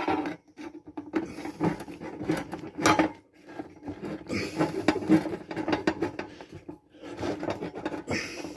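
Clicks, scrapes and small knocks of a hand screwdriver working rusted screws out of an old bee smoker, metal rattling against the wooden bellows.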